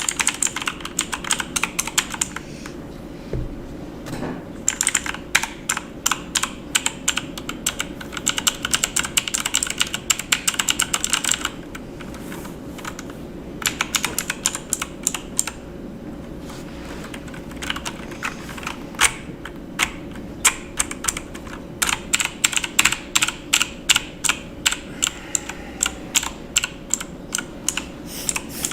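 Typing on a computer keyboard: runs of quick key clicks in bursts, broken by short pauses of a second or two.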